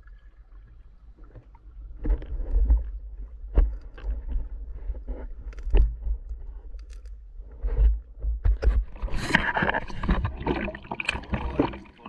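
Underwater sound picked up by a speargun-mounted action camera as the diver swims: a steady low rumble of water moving over the housing, with scattered clicks and knocks that grow denser and louder from about nine seconds in.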